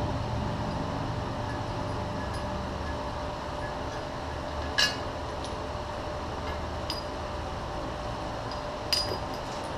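Two sharp metallic clinks, about five and nine seconds in, with a couple of fainter ticks, as metal parts are handled around an electric motor end bell in a lathe chuck, over a steady low shop hum.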